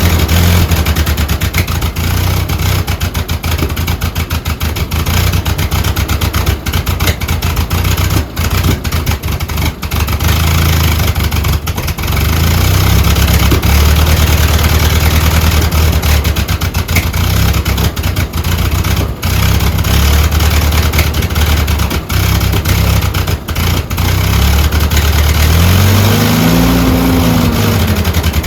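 Ford 9N tractor's four-cylinder flathead engine running steadily after a cold start in freezing weather. Its speed rises and falls briefly near the end.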